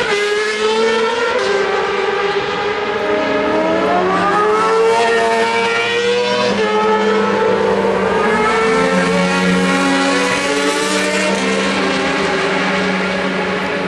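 Superbike racing engines running hard as several bikes pass, their notes overlapping, with one engine's pitch climbing for about three seconds and then dropping midway.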